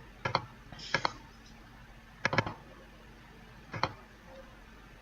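Computer mouse clicking in quick pairs, four times in a few seconds, over a faint steady room hum.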